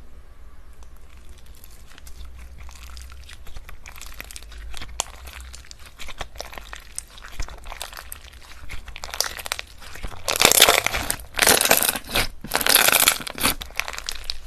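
Slime being squeezed and pressed by hand, giving a crackling, crunching sound: sparse faint crackles at first, then a dense, louder run of crackling in the last few seconds.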